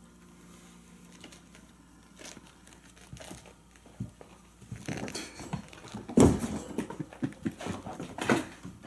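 Kittens scampering and wrestling over a person's clothes and a hardwood floor: fabric rustling, claw scratches and soft scuffs. Quiet at first, then from about halfway a busy run of irregular scuffles, with the loudest thump about six seconds in.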